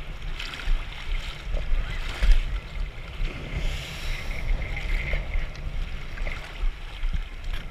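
Seawater sloshing and splashing against a camera held at the surface, with uneven splashes about half a second and two seconds in. A Yamaha VX Sport jet ski runs out on the water as it carves past.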